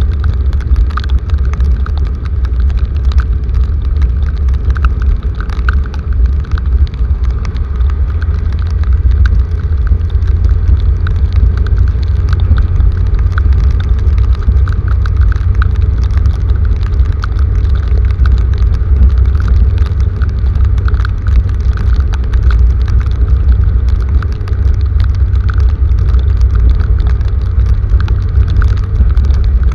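Heavy rain falling, with many scattered drop ticks over a loud, steady low rumble.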